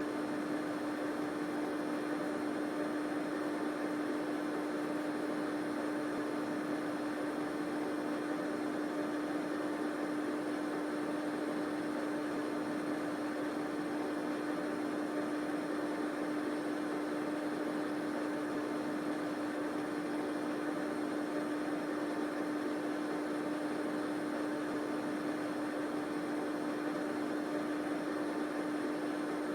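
Electric fan running steadily: an even whooshing noise with a constant low hum from the motor, unchanging throughout.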